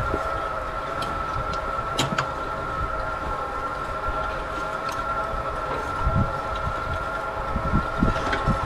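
FarmDroid FD20 field robot hoeing between crop rows: a steady high electric whine from its drive over a low rumble of the hoe tools moving through stony soil. A few sharp clicks break in, the strongest about two seconds in.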